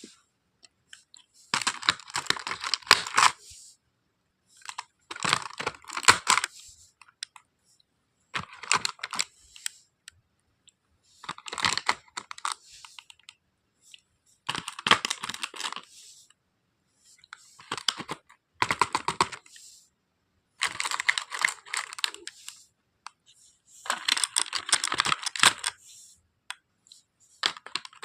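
Plastic toy doctor-kit pieces and their packaging handled in repeated bursts of clicking, clattering and crinkling. Each burst lasts a second or two, with a pause of about a second between them.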